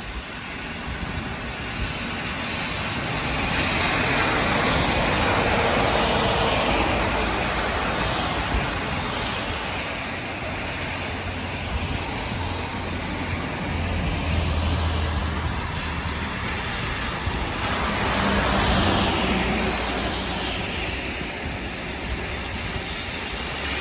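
Road traffic on wet asphalt: tyres hissing on the rain-soaked road as vehicles pass, each pass swelling and fading. A heavier vehicle adds a low engine hum in the middle.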